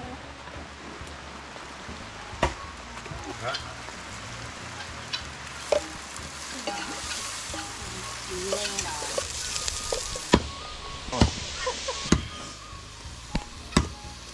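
Chicken frying in hot oil in a metal pot, a steady sizzle that grows stronger in the middle, with sharp knocks of a wooden spoon against the pot several times as it is stirred.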